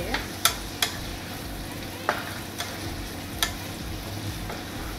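Chopped garlic and onion sizzling in oil in a nonstick frying pan as they are sautéed, stirred with a wooden spatula that knocks sharply against the pan a few times.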